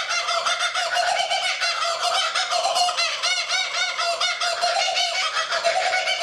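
Laughing kookaburra calling: a fast, continuous run of repeated rising-and-falling laughing notes.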